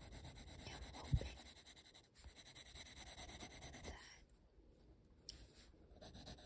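Coloured pencil scratching across sketchbook paper in quick back-and-forth shading strokes, with one low thump about a second in. The strokes pause briefly after the middle.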